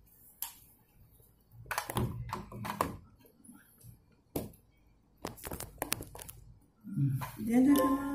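Scattered taps and knocks, like objects being handled close to the microphone, in a few quick clusters. A person's voice starts near the end.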